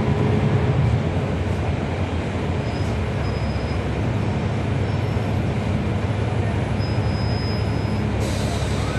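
Inside a 2012 NABI 40-foot transit bus: its Cummins ISL9 inline-six diesel runs steadily under the floor with cabin and road noise. Faint high-pitched tones come and go through the middle, and a brief hiss sounds near the end.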